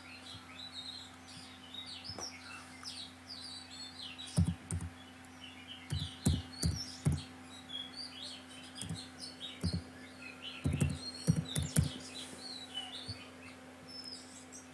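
Small birds chirping over and over in the background. About a dozen separate computer keyboard key presses come from about four seconds in, with a faint steady hum underneath.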